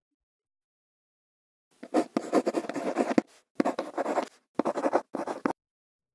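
Paper rustling and being folded, in four scratchy bursts over about four seconds, the first the longest.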